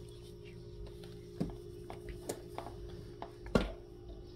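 A cat stepping down from a window sill onto a padded chair seat: a few soft knocks and one louder thump about three and a half seconds in, over a steady low hum.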